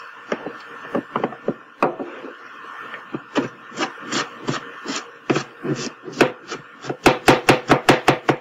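Chef's knife dicing an onion on a plastic cutting board: uneven slicing strokes at first, then, about seven seconds in, a quick steady run of chops at about five a second.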